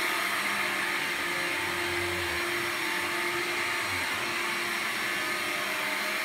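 Hoover LINX 18-volt cordless stick vacuum running steadily on carpet with its carpet brush roll switched on: a constant motor whine over a rush of air.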